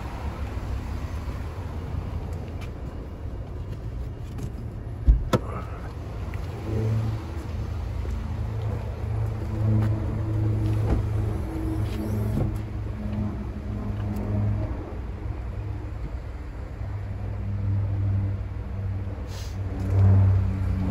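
A car engine idling with a steady low hum. A single sharp knock, like a car door or panel being shut, comes about five seconds in.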